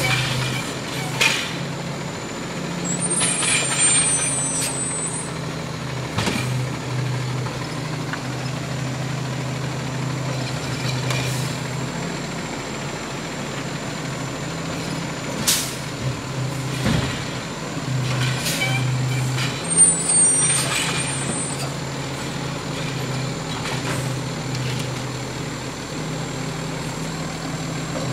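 Diesel garbage truck running at the curb, its low engine note rising and falling. Air brakes hiss twice, and there are a few sharp knocks.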